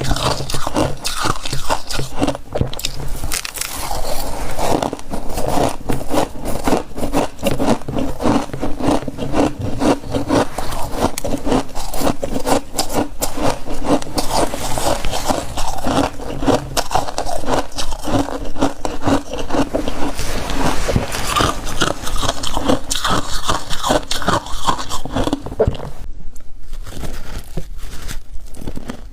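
Close-up crunching and chewing of a mouthful of freezer frost: a dense run of crisp crackles and crunches, with a brief lull near the end.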